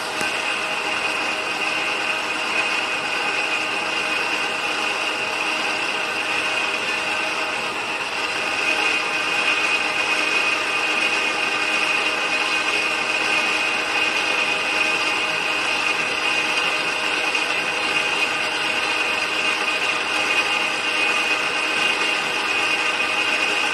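Small power tool running steadily while cutting titanium plate, with a high whine throughout; it gets louder about eight or nine seconds in.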